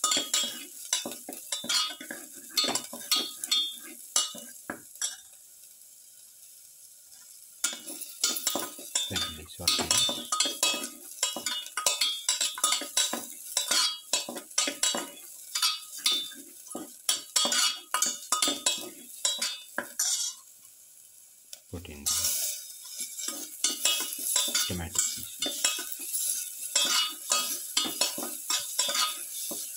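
Spatula scraping and clicking against a steel pan as garlic cloves and sliced onions are stirred while frying in oil, over a light sizzle. The stirring pauses twice, at about five seconds and again at about twenty seconds, leaving only the faint sizzle.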